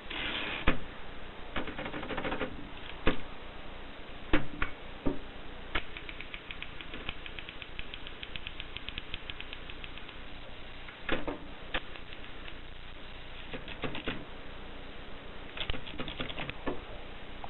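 Mercedes Selecta typewriter being operated: irregular key strikes, a fast even run of small clicks in the middle, and a few louder clacks.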